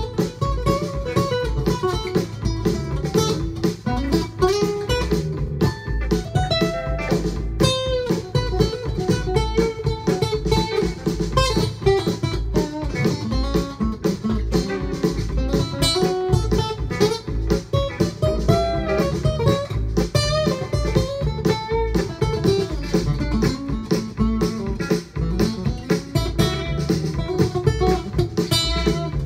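Dean Exotica cocobolo acoustic-electric guitar picking single-note lead lines, some notes bending in pitch, played along with a backing track of a full band with bass and drums.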